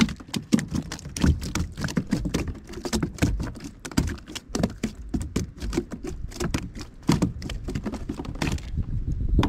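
A crappie flopping on the plastic floor of a fishing kayak: a rapid, irregular run of taps and thumps that dies down near the end.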